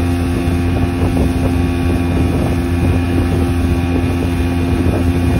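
Motorboat engine running steadily under way, a constant drone, with wind buffeting the microphone.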